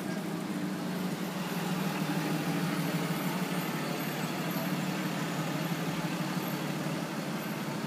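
City street traffic: a steady low rumble of vehicles running and passing by.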